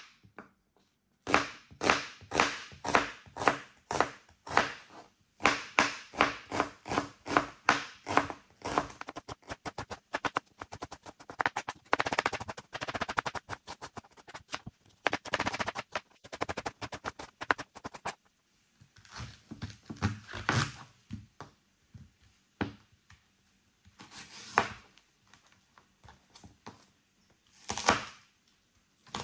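Kitchen knife chopping onion finely on a cutting board. Even chops at about three a second, then a faster run of quick chops in the middle, then scattered single chops near the end.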